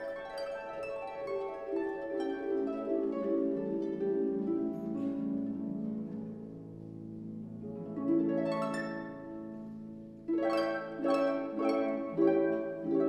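Background music of plucked strings, harp-like, over held lower notes, with a fresh run of plucked notes about eight seconds in and again near the end.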